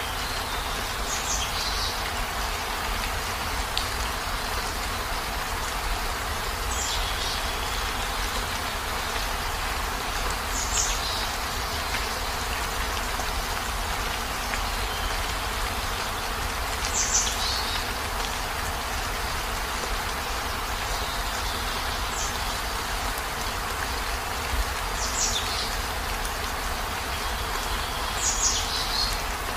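Steady rain falling, with a bird giving short high chirps, about seven of them, each dropping in pitch, spaced a few seconds apart.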